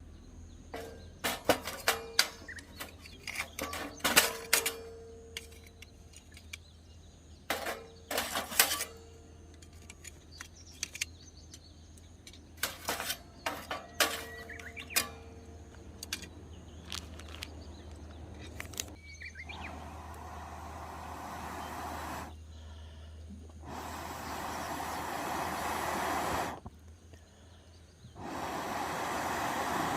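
Metal camp cooking gear clinking and knocking, some strikes ringing briefly, over the first half. Then three stretches of steady hiss, each growing louder before cutting off abruptly.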